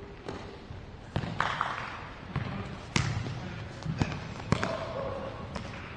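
A futsal ball being kicked and bouncing on a hard indoor court: a run of sharp, irregular thuds, about seven in six seconds, the loudest about three seconds in.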